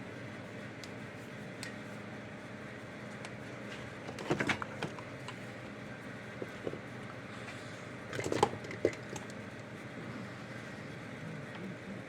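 Objects being handled on a workbench, heard as two short bursts of clattering about four seconds apart over a steady room hum.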